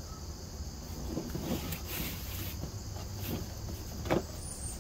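A steady insect chorus in the background, with fabric rustling and handling noise as cloth clown pants are pulled down over a plastic prop frame, and one sharp knock a little after four seconds.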